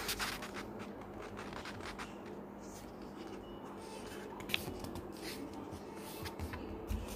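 A sheet of exercise-book paper being folded: faint rustling and rubbing as the paper is brought down and the crease is pressed, with a sharper tick about four and a half seconds in.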